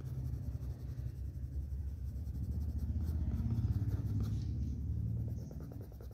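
Red coloured pencil scratching across drawing paper in short shading strokes, over a steady low rumble.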